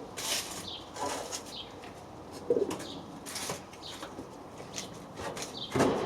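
Small paint roller rolling over a metal drawer panel: a run of short, wet swishing strokes, growing louder near the end.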